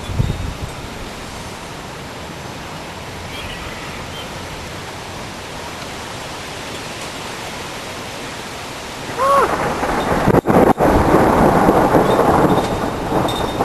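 Steady rain hiss, then about nine seconds in a loud thunderclap breaks and rumbles on, the camera's audio cutting out briefly in places.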